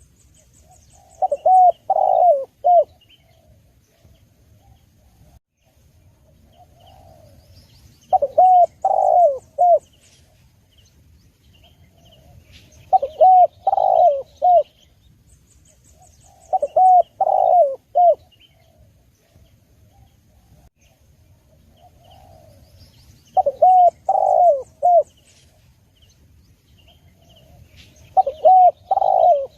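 Spotted dove (tekukur) cooing: six phrases of three or four coo notes each, a few seconds apart. Faint high chirps of small birds sound in between.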